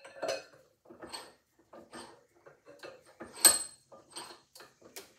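Metal knocks and clinks from a phonograph turntable and hand tools being handled and set down, roughly one a second and uneven, with one sharper ringing clank about three and a half seconds in.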